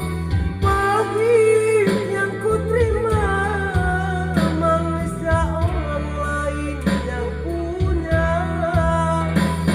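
A solo singer holding and bending sung notes over instrumental accompaniment with steady bass notes. The singer says the voice is not at its best because of a cough.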